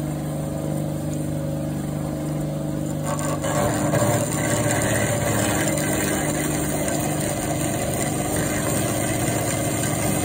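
Metal-cutting bandsaw running, its blade sawing through a steel part to part it off the round-bar blank. About three and a half seconds in the cutting gets louder and rougher.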